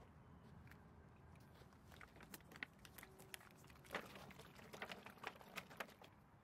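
A 5-litre plastic jug of liquid being shaken to mix it: a string of quiet clicks and knocks of the plastic, densest in the second half, with liquid sloshing.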